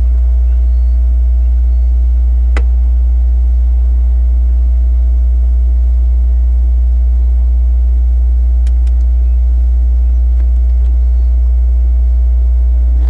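Loud, steady low hum that does not change, with a single sharp click about two and a half seconds in and a few faint ticks later.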